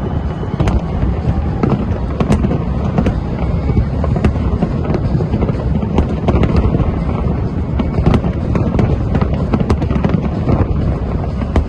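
Large aerial fireworks display: a continuous barrage of bangs and crackling bursts, many sharp cracks a second over a dense, steady low din.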